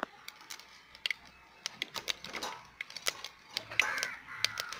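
Mustard seeds popping in hot oil in a clay pot, a scatter of irregular sharp pops and crackles: the sign that the oil is hot and the tempering is ready for the next spice. A crow caws in the background near the end.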